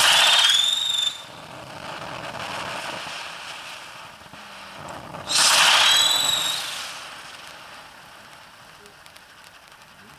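Brothers Fireworks 'Dark Science' fountain firing. It opens with a sudden loud burst and a short whistle, then gives a steady hiss of sparks. A second loud whistling burst comes about five seconds in, then fades to a quieter hiss.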